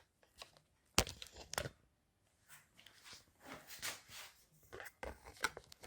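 Handling noises as a phone is taken off a quick-release tripod bracket: a sharp click about a second in, then soft rustling and a few lighter clicks.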